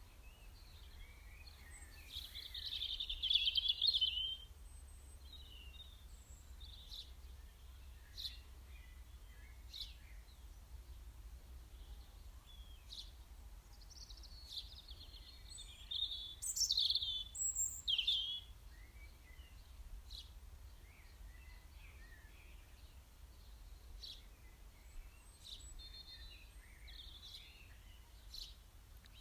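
Wild songbirds chirping and singing, with scattered short calls and two louder bursts of song about three seconds in and again about sixteen seconds in, over a faint low hum.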